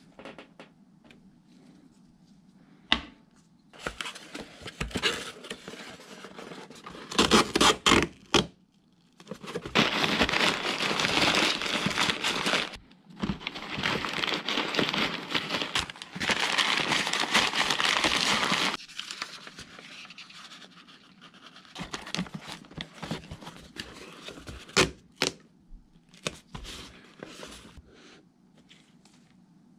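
Brown packing paper crinkling as it is crumpled and stuffed into a cardboard box around a fishing reel, in two long stretches. Before them come a few sharp knocks, and after them lighter rustles and clicks as the box is handled.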